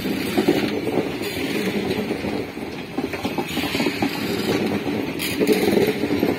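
Indian Railways sleeper coaches rolling past at low speed: steel wheels rumbling and clattering over the rails, with a sharper clack about five seconds in.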